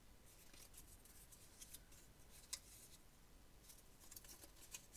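Faint rustling and small clicks of paper strips being handled and pressed together, with one sharper click about halfway through and a cluster of ticks near the end.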